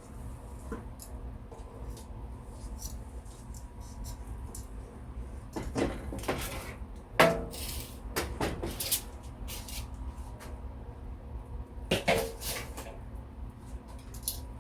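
Kitchen clatter as the air fryer basket is handled and chicken pieces are turned: scattered clinks and knocks of metal and dishware, the loudest a sharp clank about seven seconds in, over a steady low hum.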